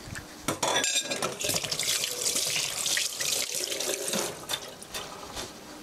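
Water running from a tap into a sink for about four seconds, starting about half a second in and then stopping.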